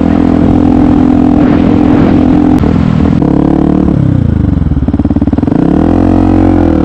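Yamaha WR125X's single-cylinder four-stroke engine under way: a steady pull, then about halfway through the revs fall away, sit low and uneven for a moment, and climb back up near the end.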